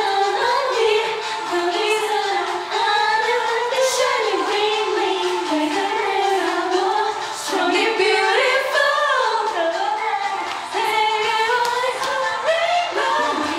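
K-pop girl-group song playing, with female vocals singing the melody over the backing track.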